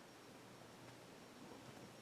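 Near silence: a faint steady hum and hiss from a GE stack-motor ceiling fan running quietly on its variable speed control.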